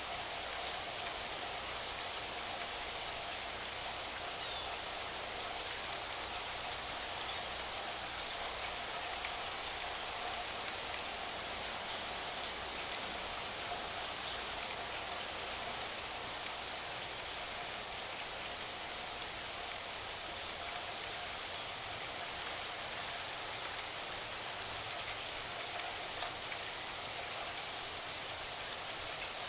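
Steady rain falling: an even hiss with fine scattered drop ticks, holding level throughout.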